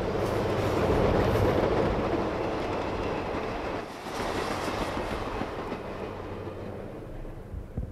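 Diesel freight train passing, the rumble and clickety-clack of its freight cars rolling by, slowly fading.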